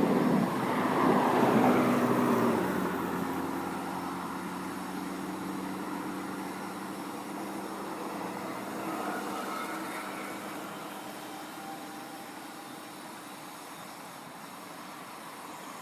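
Rolling thunder dying away over the first few seconds, leaving a steady low background hum with faint held tones.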